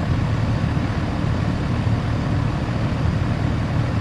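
Air conditioner outdoor condensing unit running steadily: the compressor humming with the condenser fan's rush of air. The compressor now runs on a replaced run capacitor and a hard-start kit after the old capacitor failed.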